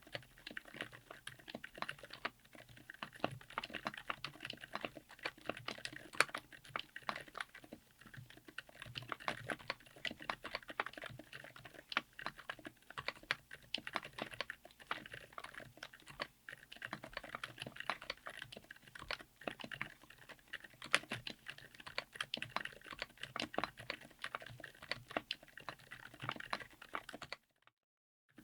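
Continuous fast typing on a mechanical keyboard with TTC Frozen Silent Bluish White silent tactile switches, on a DZ60 PCB with an FR4 plate in a Tofu60 aluminium case; the switches have a quiet, dampened bottom-out. The typing stops abruptly about a second before the end.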